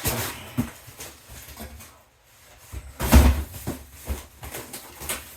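Cardboard LEGO set boxes being handled and shuffled, rustling and scraping, with a heavier thud as one is set down about three seconds in.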